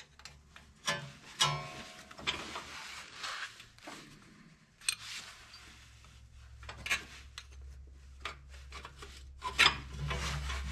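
Two wrenches working an air-line fitting on an exhaust brake's air cylinder: irregular metallic clicks, taps and scraping as the wrenches slip and turn on the fitting. A low steady hum runs underneath from about a second in and gets louder near the end.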